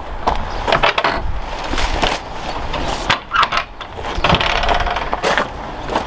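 Irregular knocks, clicks and clatters, with a longer rough noise about four seconds in.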